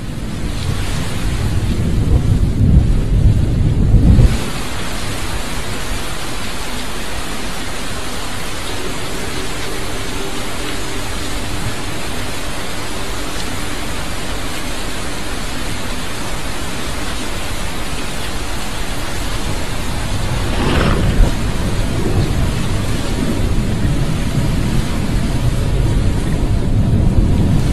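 Abstract soundscape of dense hiss over a heavy low rumble, like rain and rolling thunder. It fades in, the rumble cuts off suddenly about four seconds in, leaving steady hiss with faint held tones, and a whoosh about twenty-one seconds in brings the rumble back.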